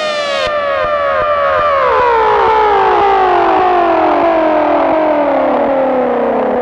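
Electronic dub siren effect winding down: a run of short falling sweeps, each starting a little lower than the last, so the whole sound slides steadily down in pitch.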